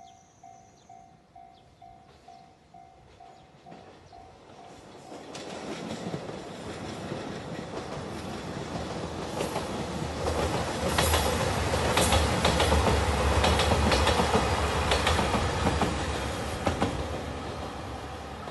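Level crossing warning bell ringing about twice a second, stopping about five seconds in. A JR Shikoku 2700 series diesel express train then approaches and passes, its diesel engines running and its wheels clacking over the rail joints, loudest in the middle of the pass and easing off near the end.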